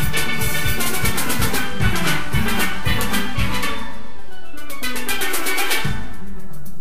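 Steelband playing a full arrangement: many steel pans struck together in a steady rhythm, with bass pans and percussion underneath. A little past halfway the bass and percussion drop out for about two seconds, leaving the upper pans, before the full band comes back in near the end.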